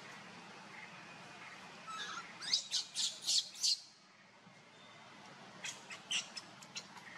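Infant macaque squealing in short, shrill cries: a loud run of about five in quick succession in the middle, then a fainter run of shorter squeaks near the end. Distress cries of a baby being grabbed and pulled about by an older monkey.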